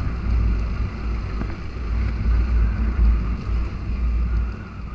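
Wind buffeting the microphone of a riding motorcycle, a heavy, uneven low rumble over steady engine and road noise.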